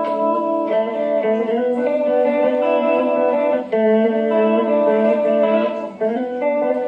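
Electric guitar played with a clean tone through a Behringer 69 Vibe pedal in vibrato mode, depth and level set near three o'clock, into a Vox AC4TV amp. It plays sustained chords that change every second or so.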